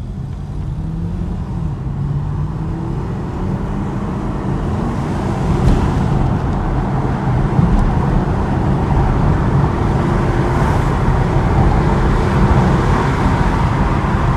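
Chevrolet Camaro engine pulling hard under full acceleration, heard from inside the cabin, its pitch rising as road and wind noise build. It runs smoothly, with no misfire now that the cylinder 6 injector fault is cured.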